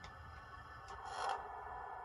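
Hornby Class 390 Pendolino model's DCC sound decoder playing the standing electric train's steady whine of several tones, with a brief hiss about a second in.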